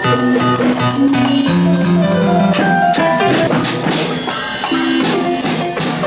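Electronic keyboard played with different instrument sounds assigned to its keys: irregular tambourine and drum hits mixed with held pitched notes at changing pitches.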